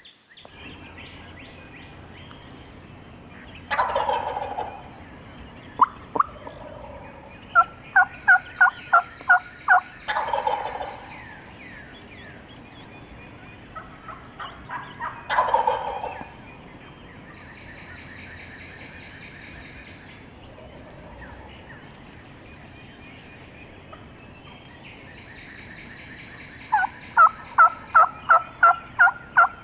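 A wild turkey gobbler gobbling from its roost three times, about five to six seconds apart. Two runs of about eight evenly spaced turkey yelps are also heard, one about a quarter of the way in and one near the end.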